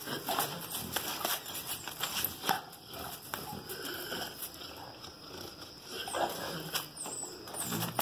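A pit bull moving about on a concrete floor while held by its collar, with scattered clicks and scuffs of its claws and paws and short breathy sounds from the dog.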